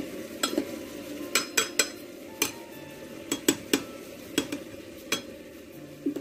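Metal spoon stirring rice and vegetables in an aluminium pot, clinking against the pot about a dozen times at uneven intervals.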